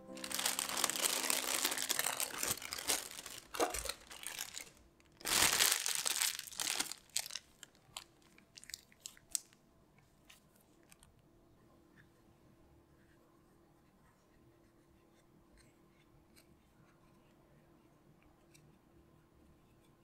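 Thin plastic piping bag crinkling and rustling as it is handled and the almond filling is pushed down inside it, in two loud spells over the first seven seconds, then a few soft crackles and clicks before it goes quiet.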